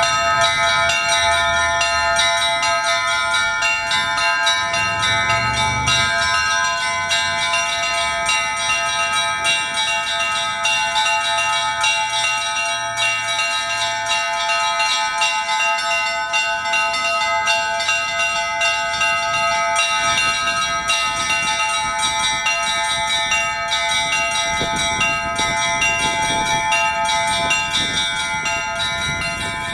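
Russian Orthodox church bells ringing a continuous peal, the small high bells struck in quick succession over the ringing of many held tones.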